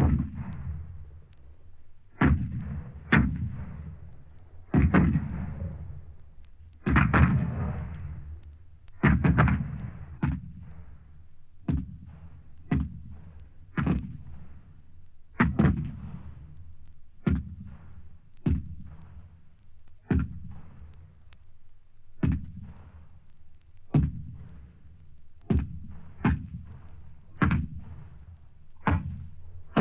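War sound effect: a string of heavy gunshots or blasts, about two dozen at an irregular pace of roughly one a second, each trailing off in a low rumbling echo. The first several have longer rolling tails.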